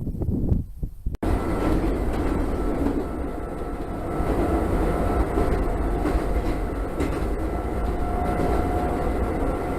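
Shintetsu electric train running along the track: a steady rail rumble with a faint high motor whine, after a brief gusty rumble and an abrupt cut about a second in.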